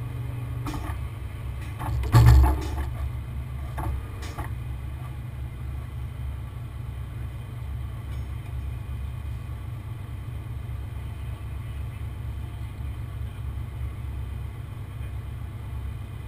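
Heavy truck's diesel engine running steadily with a low rumble, a single loud knock about two seconds in and a few lighter clicks around it.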